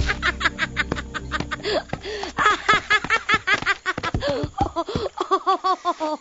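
A female cartoon character's long fit of laughter: a rapid run of ha-ha pulses, about five a second, rising and falling in pitch.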